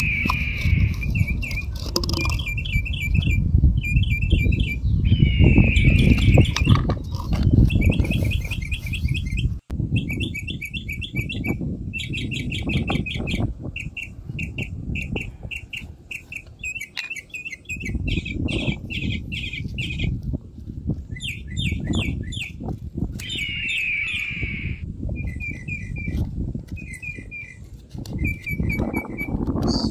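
Birds chirping in quick repeated trills, phrase after phrase, over a steady low rumble.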